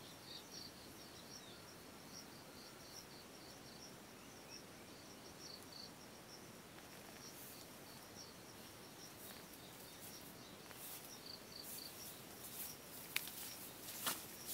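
Faint insects chirping in a steady rhythm of short, high pulses, which die away about eleven seconds in. In the last couple of seconds come rustling, clicking footsteps as someone walks up and steps into the tent.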